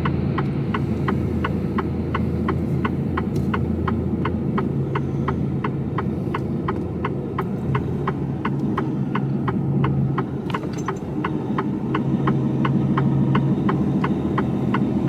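Lorry's turn-signal relay ticking evenly, about three clicks a second, over the low steady hum of the Mercedes Actros diesel engine running slowly, heard from inside the cab.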